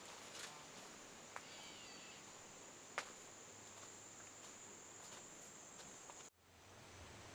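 Faint woodland ambience: a steady high-pitched insect drone that cuts off abruptly about six seconds in, with a few faint clicks and a brief bird chirp.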